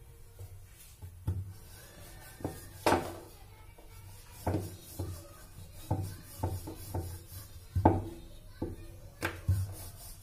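Wooden rolling pin rolling paratha dough on a round wooden board, knocking against the board in a dozen or so irregular clacks, the loudest about three seconds in and near eight seconds.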